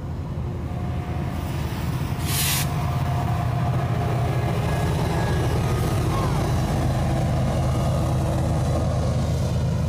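Freight train passing close by: hopper cars rolling over the rails, then BNSF diesel-electric locomotives going past with a steady low diesel engine drone that grows louder about a second and a half in. A short hiss comes about two and a half seconds in.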